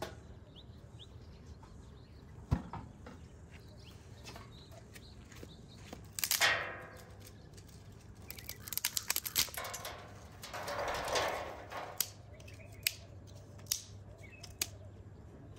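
Dry twigs rustling and snapping as they are broken by hand and stacked in a steel fire tray to lay a campfire, ending in a run of single sharp snaps.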